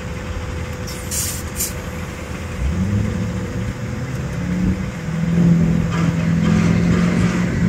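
A rollback tow truck's engine revs up about three seconds in and holds at a raised, steady speed, as when driving the bed's hydraulics, which are struggling; the driver later blames an overheated PTO. A short hiss comes about a second in.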